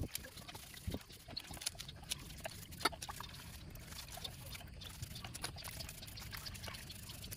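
A bristle brush scrubbing greasy engine parts over a bucket of cleaning fluid: liquid sloshing and dripping, with many small scratches and clicks.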